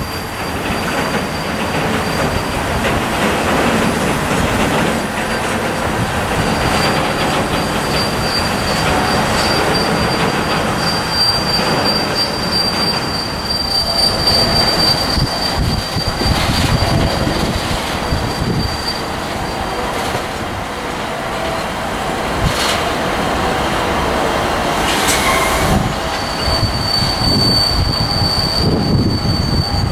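Freight wagons rolling past at close range: a steady rumble of steel wheels on the rails with a high wheel squeal that drops out for several seconds late on and returns near the end.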